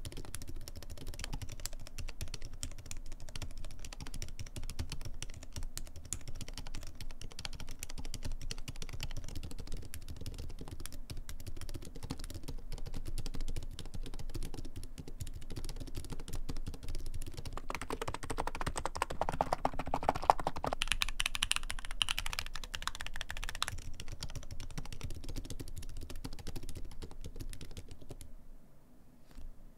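Steady typing on a Corne Cherry V3 split keyboard with Kailh Midnight Silent V2 tactile switches and ceramic Cerakey keycaps. The keys give a weighty, muffled "koto-koto" sound with hardly any high-pitched clack. The typing stops just before the end.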